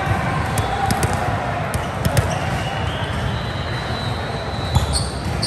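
Ball game on an indoor court: scattered sharp ball bounces and hits, with a few short high squeaks, over steady hall noise.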